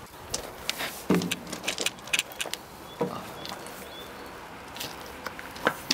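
Footsteps over gravel and rubble, with scattered sharp clicks and small knocks; a louder knock comes about a second in, another about three seconds in, and one more near the end.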